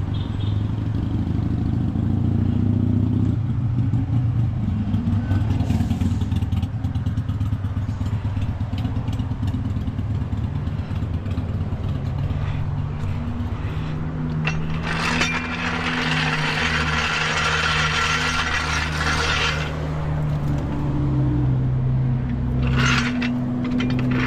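A vehicle engine idling steadily, its pitch shifting slightly now and then. About fifteen seconds in comes a hiss lasting some four seconds, and brief noises follow near the end.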